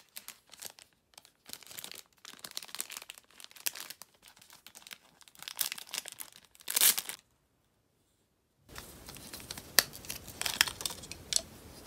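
Plastic packaging crinkling and tearing as it is opened by hand, with a louder tear about seven seconds in. After a second and a half of dead silence, a few light clicks as the plastic pump bottle is handled.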